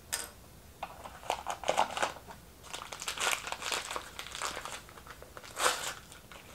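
Packaging crinkling and rustling as small doll accessories are unwrapped by hand, in irregular crackles that are loudest around the middle and again near the end.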